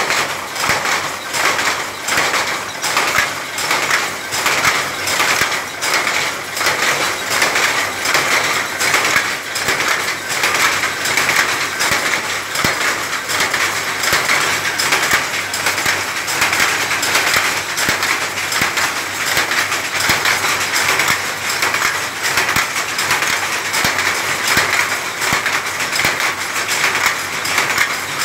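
Power looms weaving: a loud, steady, rhythmic mechanical clatter that repeats with each weaving cycle and runs on without a break.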